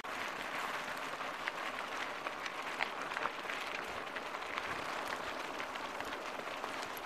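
Mountain bike tyres rolling over loose gravel and stones, a steady crunching hiss with many small clicks and rattles from the bike.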